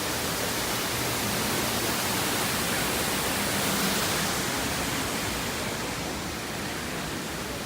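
Steady rushing of an artificial waterfall: an even, hissing wash of noise that swells a little around the middle.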